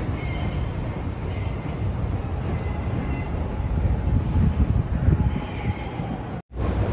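A train running: a steady low rumble with faint high-pitched tones above it, cut off abruptly near the end.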